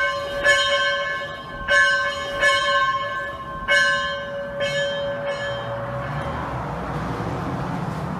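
A rope-rung bell swinging and striking, about one stroke a second, each stroke ringing on with several steady tones. The last two strokes are weaker, and the ringing dies away about six seconds in, leaving a steady background noise.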